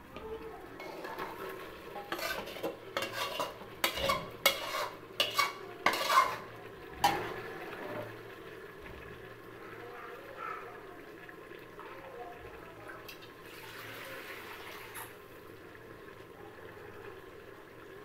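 Metal spatula scraping and clanking against metal cookware as chicken pieces are scraped from a pan into an aluminium pressure cooker. It makes a run of sharp clanks between about two and seven seconds in, then fainter scraping.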